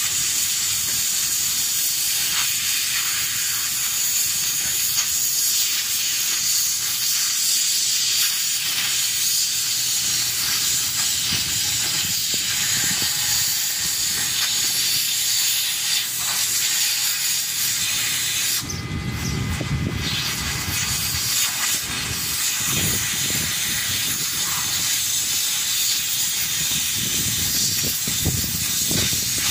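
Oxy-fuel cutting torch hissing steadily as it cuts through steel plate. About two-thirds of the way through the hiss drops out for about a second and a lower rumble takes its place.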